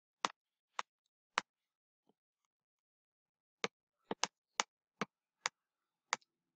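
Computer mouse clicking: three sharp clicks in the first second and a half, then after a pause seven more, two of them close together like a double-click.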